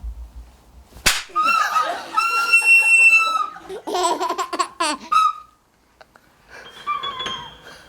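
A sharp slap about a second in, then a wind instrument held in the mouth squeals, sounding a wavering note that settles into a steady high one. Shorter squeaky notes follow.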